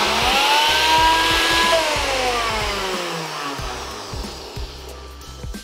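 NutriBullet blender motor running on a jar of plant milk and oil as it whips it into mayonnaise, its whine rising in pitch for a second and a half or so. It then winds down, the pitch falling away as the motor stops.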